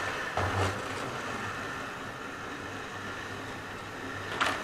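OO gauge model HST train running along the track: a steady low motor hum and whine with wheel-on-rail noise, and two louder clicks, about half a second in and near the end.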